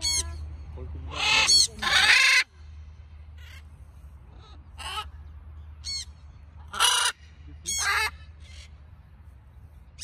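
Parrots giving loud, harsh squawks: two long ones in the first few seconds, then shorter squawks about once a second.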